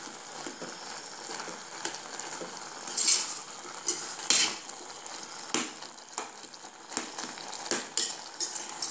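Steel spoon stirring thick cooked jackfruit and jackfruit seeds in a stainless steel pot, with irregular scrapes and clinks of metal on metal, the loudest about three seconds in, over a steady soft hiss.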